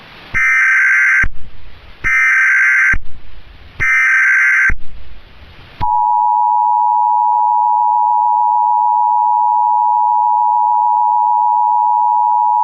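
Emergency Alert System alert tones: three short blasts of screechy SAME header data tones, then the EAS attention signal, a steady two-tone alarm held without a break.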